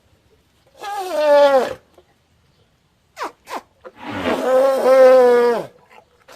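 Elephant calling: a short call that falls in pitch, two very brief squeaks, then a longer held call that drops away at the end.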